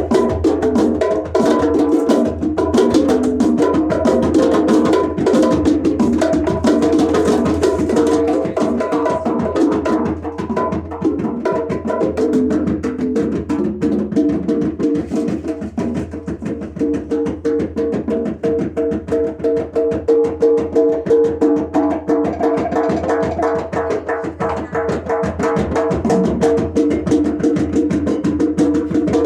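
Djembe drumming: a fast, dense hand-drum rhythm of quick strokes over ringing drum tones.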